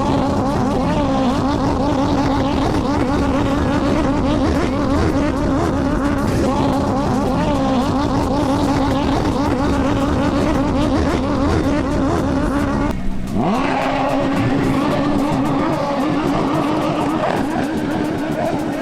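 Racing jet-ski engines running at high revs, steady and loud. About thirteen seconds in the sound briefly drops out, then an engine climbs in pitch as it revs back up.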